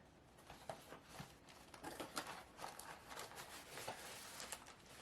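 Faint rustling and scattered small clicks of packaging and plastic paint pots being handled as a paint-by-number kit is unpacked.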